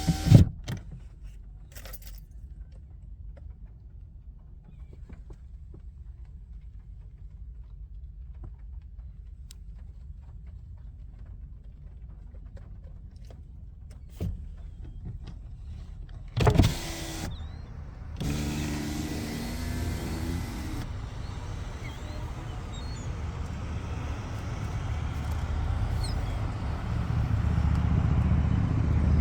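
A car's low rumble, with a sharp thump right at the start and a louder one a little past the middle; the rumble grows louder near the end.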